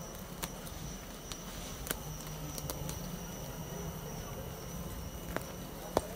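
Honeybees from a freshly disturbed wild colony buzzing in a low steady hum, over thin steady high insect tones, with a few small sharp clicks, the loudest two near the end.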